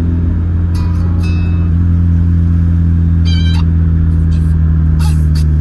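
Music playing through the van's aftermarket car stereo inside the cabin. Underneath is a steady low drone, and short high notes come in about a second in, again past the middle and near the end.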